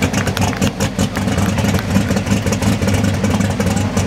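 Ford 9600 pulling tractor's engine running at low revs as the tractor rolls slowly, a steady low drone with a rapid, uneven crackle.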